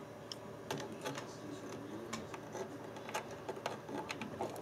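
Irregular light clicks and ticks, a few a second and louder near the end, over the faint steady hum of a running desktop computer.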